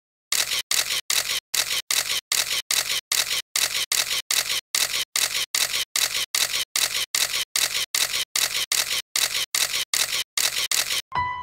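Camera shutter firing over and over in a fast, even run, about two and a half shots a second, then stopping abruptly near the end.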